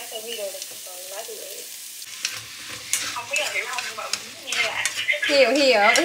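Sliced food sizzling in a frying pan while being stirred and turned with chopsticks, with small clicks of the chopsticks. A wavering, pitched sound rises over it, loudest near the end.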